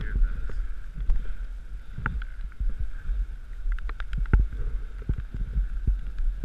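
Dog sled gliding over a snowy trail: a steady rumble from the runners, broken by frequent short knocks and rattles from the sled as it bumps along.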